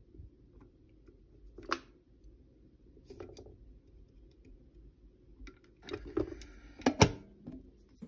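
Quiet handling knocks and clicks on a SMEG electric kettle, with a cluster of knocks near the end and a sharp click about seven seconds in as its hinged lid is snapped shut.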